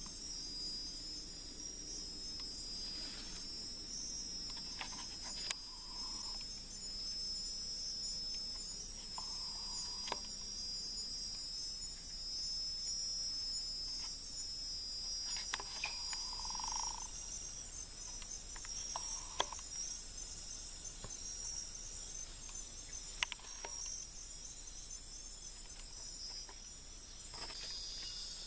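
Steady, high-pitched chorus of night insects such as crickets, trilling without a break. A few short, lower calls come through now and then, along with a few sharp clicks.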